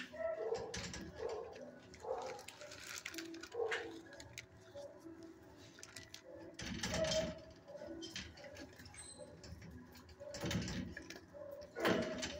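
Dogs in shelter kennels barking and yelping in repeated short calls, with louder bursts about seven, ten and twelve seconds in.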